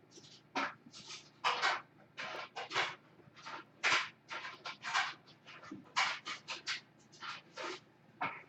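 Trading cards and foil pack wrappers being handled: a string of short, irregular rustles and scrapes, about two to three a second.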